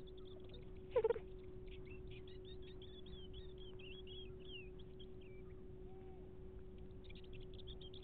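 Coyotes yipping and howling in high, wavering calls that rise and fall, faint and distant, mostly in the first half, with one short louder call about a second in. A steady electronic hum sits underneath.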